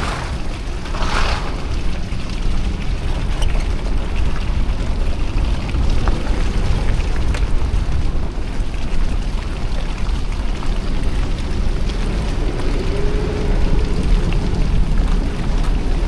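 Lexus GX470 driving slowly along an icy trail: the steady low rumble of its 4.7-litre V8 and Nitto Mud Grappler mud-terrain tyres, with a few faint clicks and knocks scattered through it.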